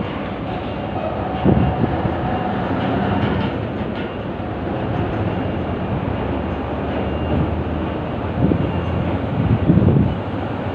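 Steady low rumble of heavy machinery and traffic, with dull thumps about a second and a half in and near the end.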